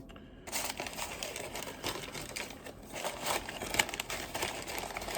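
Packing material crinkling and crackling as hands dig through a shipping box, starting about half a second in with many sharp crackles.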